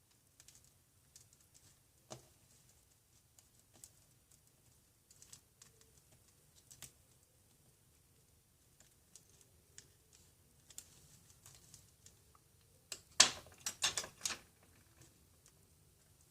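Small repair tools clicking and tapping against phone parts in scattered light ticks, with a quick run of louder clicks about thirteen seconds in.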